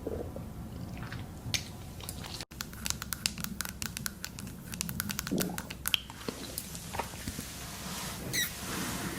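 Hungry stomach gurgling, heard close up: scattered clicks and pops, a quick run of rapid clicks between about two and four seconds in, and a short low gurgle that rises and falls about five seconds in.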